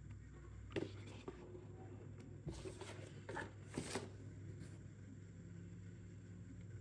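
Scattered rustling and a few light clicks from packaging being handled and unwrapped, over a steady low hum.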